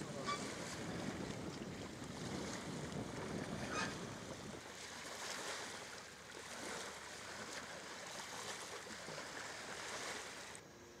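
Steady rushing of wind and water from a boat on a wide river, with a heavier low rumble in the first few seconds that then eases. The noise drops away shortly before the end.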